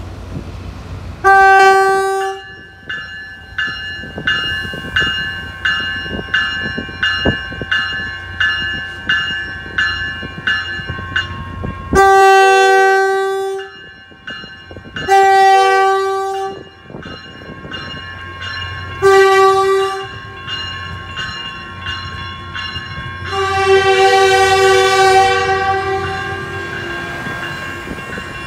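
Caltrain commuter train's horn: one blast, then the long, long, short, long grade-crossing signal, with the last blast held about three seconds. A warning bell rings about twice a second between the first and second blasts.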